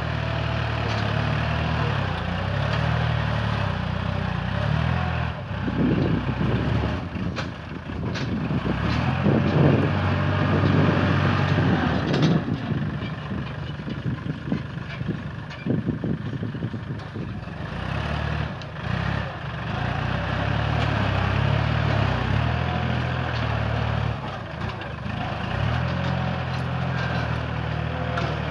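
Kubota tractor's diesel engine running under load as its front blade pushes soil, the engine note rising and falling in the middle as the load changes.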